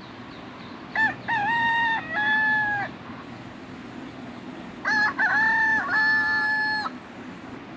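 Rooster crowing twice, each crow a drawn-out multi-part call about two seconds long, the second starting about four seconds after the first, over a steady background noise.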